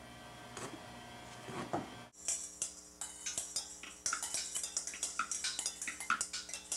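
Children drumming with sticks on upturned stainless steel mixing bowls and a plastic bucket: a few scattered taps at first, then, after a short break about two seconds in, a fast run of ringing metallic clinks and knocks, several strikes a second.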